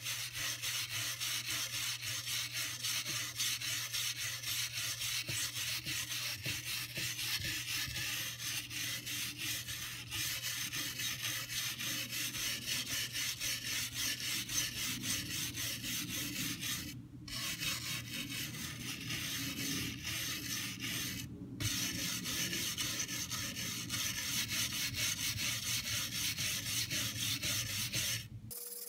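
Wire brush scrubbing rapidly back and forth over torch-charred oak, scraping away the loose char and ash, which is the brushing stage of a shou sugi ban (yakisugi) finish. The scraping pauses briefly twice, about 17 and 21 seconds in, and stops just before the end.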